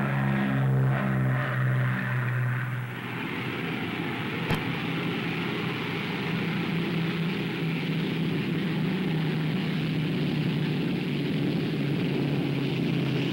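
Propeller airliner engines drone with a steady pitched note, fading out about two and a half seconds in; then the steady running of a Bristol Britannia's turboprop engines on the ground takes over with an even hiss and low hum. A single sharp click comes about four and a half seconds in.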